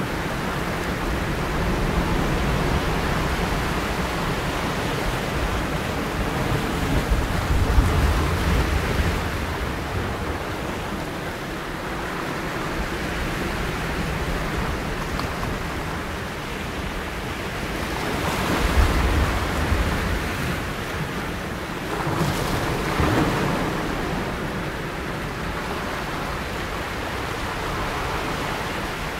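Ocean surf washing steadily, swelling louder about a quarter of the way in and twice more around two-thirds of the way through.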